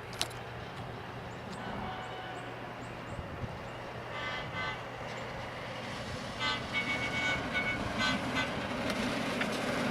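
Horn of a track inspection vehicle sounding in short blasts: one about four seconds in, then a quick run of several more, over the rumble of the vehicle that grows louder as it approaches.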